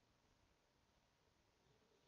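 Near silence: only faint hiss, with no sound events.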